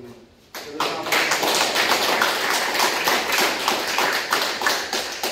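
A group of people applauding, starting about half a second in and dying away near the end.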